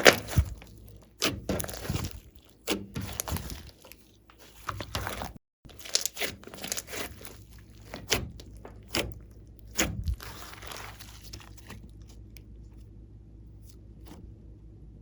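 Glossy slime being squished and pressed by hand, giving irregular sticky clicks and crackles that die away after about twelve seconds.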